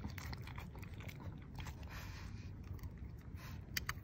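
A Pekingese dog chewing and crunching small treats taken from a hand: a run of short, irregular crunches.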